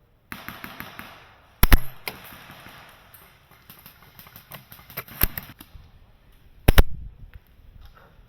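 Airsoft gun shots: three sharp cracks, the first about a second and a half in and two more near the end, with a quick run of smaller clicks at the start.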